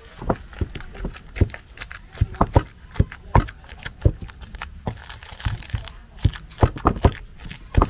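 Wooden pestle pounding plantain in a wooden mortar: an irregular run of thuds, about two a second.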